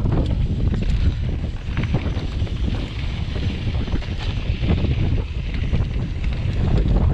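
Wind buffeting a handlebar-mounted camera's microphone while a mountain bike rolls along a loose dirt trail. Underneath is a steady rumble of tyres on dirt and gravel, with scattered clicks and knocks from the bike over bumps.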